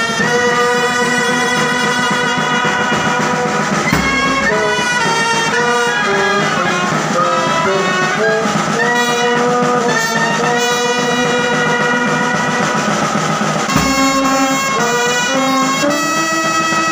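Brass band playing a tune: trumpets carry the melody over sousaphones and a euphonium, with snare and bass drum. Two heavy bass drum strikes land about four seconds and fourteen seconds in.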